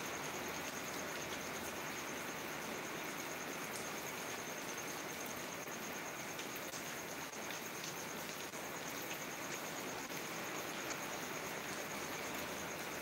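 Steady heavy rain falling, an even hiss. Over it runs the continuous high trill of crickets.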